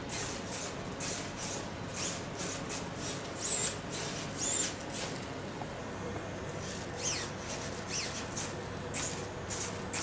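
Flapping wings of a radio-controlled Pteranodon ornithopter: the plastic-film wings rustle on every stroke, about two strokes a second, with a brief lull a little past the middle and a few squeaks mixed in.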